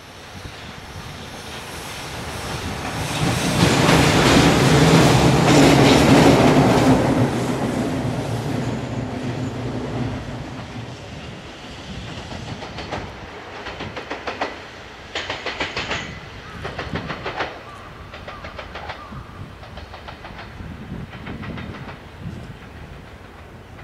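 EF210 electric locomotive passing close, its running noise with a low hum swelling to a peak about five seconds in and then fading. After that a second electric locomotive draws away, its wheels clicking over rail joints in quick groups.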